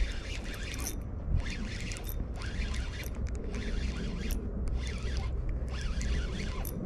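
Spinning reel being cranked on a line retrieve, a whirring gear sound in runs broken by brief pauses about once a second, over low wind rumble on the microphone.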